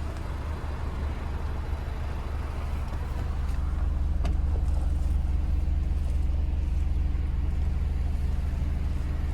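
Renault Master's 2.3-litre diesel engine running steadily with a low hum. A single click comes about four seconds in, and it runs slightly louder from then on.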